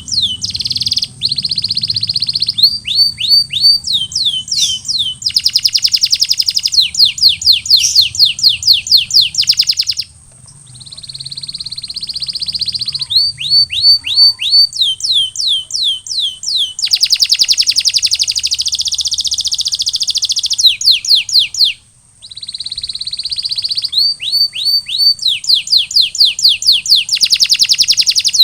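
Canary singing a long song of tours: quick runs of repeated down-slurred notes, fast rolls and held high whistled notes, with short breaks about ten seconds in and again near the twenty-two-second mark.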